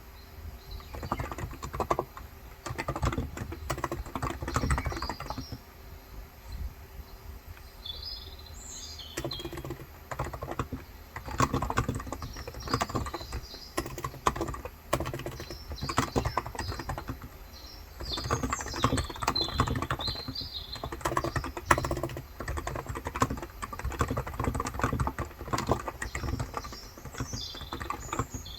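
Typing in bursts on a Cox Endeavour tenkeyless electro-capacitive keyboard with 35 g switches, fast runs of keystrokes broken by short pauses. Birds chirp in short phrases now and then in the background.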